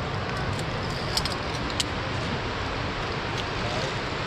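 Metal via ferrata carabiners clinking against each other and against the steel safety cable: a few sharp, light clicks over a steady rushing noise.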